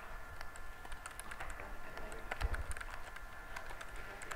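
Typing on a computer keyboard: quick, irregular key clicks, with a dull low bump about halfway through.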